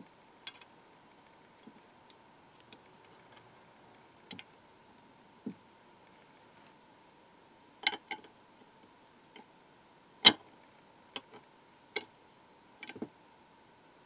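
Small metal parts of an old mortise lock clicking and tapping against the painted metal lock case as they are set in place during reassembly: about ten irregular, sharp clicks, the loudest about ten seconds in.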